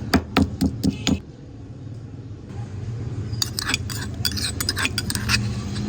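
Quick knife chops on a cutting board, about four or five a second, stopping a second in. After a quiet stretch with a steady low hum, a flurry of light clinks of kitchenware follows.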